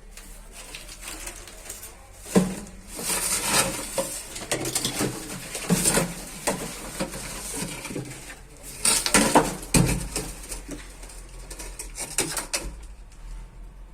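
Hard objects clattering and scraping, with irregular sharp knocks, starting about two seconds in.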